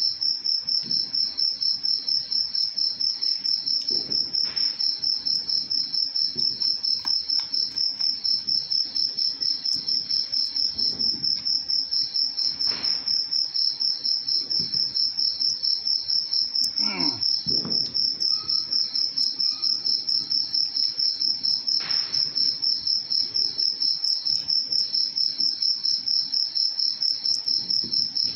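A cricket chirping loudly and steadily: a high-pitched trill in rapid, even pulses that never lets up. A few faint clicks sound under it.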